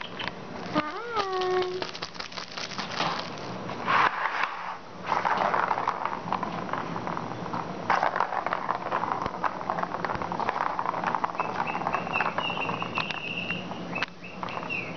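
A kitten scratching, pawing and scrabbling on a carpeted cat tree, a dense run of crackly rustling, with a short rising-and-falling call about a second in.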